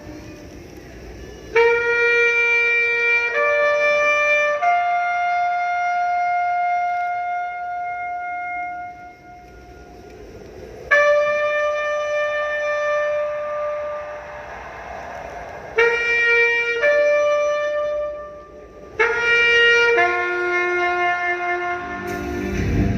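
Solo wind instrument playing a slow memorial call for the dead. It plays a few long held notes, the longest about four seconds, in three phrases with short pauses between them.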